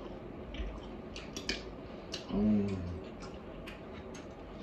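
Sounds of eating at a table: scattered small clicks and taps of forks on plates and food containers, with mouth noises of chewing. About halfway through there is a short, low vocal hum.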